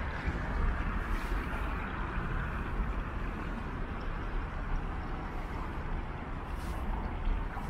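Steady outdoor city ambience: a continuous low rumble of road traffic.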